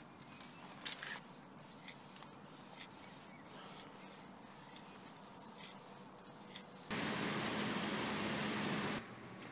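Aerosol spray-paint can spraying in short hissing bursts, about two or three a second. Near the end a steady, louder rushing noise with a low hum cuts in for about two seconds and stops abruptly, where a tipper truck is unloading grain.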